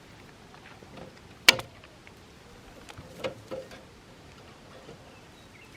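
A few sharp knocks over a low, steady background, the loudest about one and a half seconds in, with two smaller ones a couple of seconds later.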